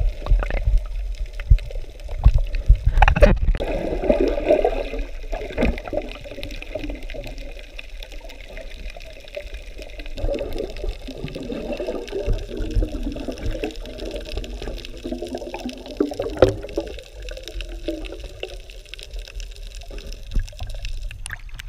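Water sloshing and gurgling over a low rumble, with a few sharp splashes in the first few seconds and one about two-thirds of the way through.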